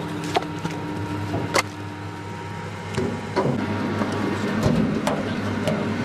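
Log splitter's motor humming steadily at idle, with a few sharp knocks and clatter of split firewood being handled on the machine's steel bed.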